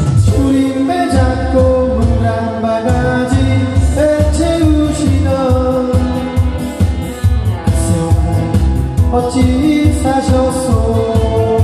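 A pop song with a sung vocal over a steady beat, played by a karaoke machine through its amplifier and a pair of 8-inch speakers.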